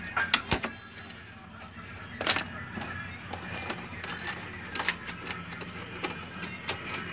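Sharp plastic clicks and knocks from the parts of a Brother DCP-T700W printer being handled during disassembly, as cable connectors are pulled from the control board and the scanner unit is moved. There are a few clicks in the first second, a louder knock a little after two seconds and more near the end, over a steady low hum with faint music behind.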